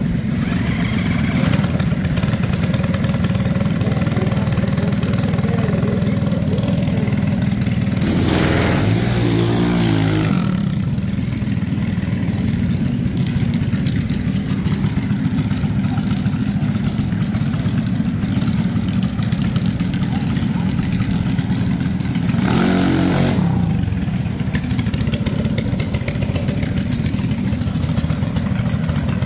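Junior dragster engines running with a steady low rumble. The engines rev louder twice: for about two seconds starting about eight seconds in, and briefly about 22 seconds in.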